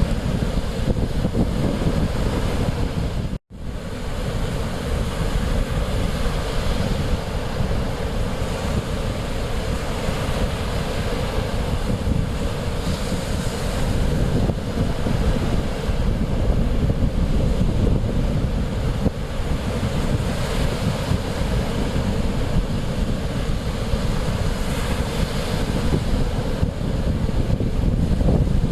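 Mediterranean Sea waves washing steadily, with wind buffeting the microphone and a heavy rumble. The sound drops out for an instant about three and a half seconds in.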